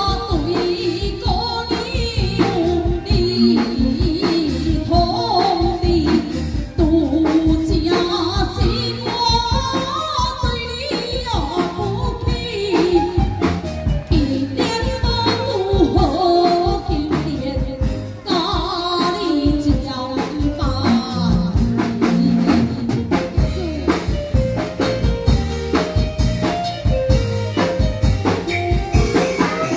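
Taiwanese opera (gezaixi) singing through a handheld microphone over an amplified band accompaniment, with steady percussion beating throughout and the sung melody gliding between notes.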